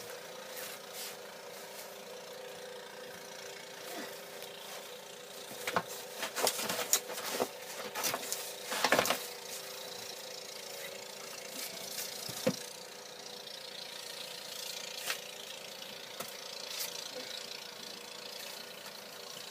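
Car engine idling steadily while snow and ice are scraped and knocked off the car, with a loud run of scrapes and knocks from about six to nine seconds in and one more knock a few seconds later.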